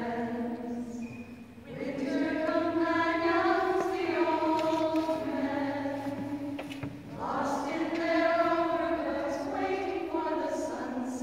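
Women's a cappella group singing in harmony, holding long notes in several voices, with short breaks between phrases about a second and a half in and again around seven seconds.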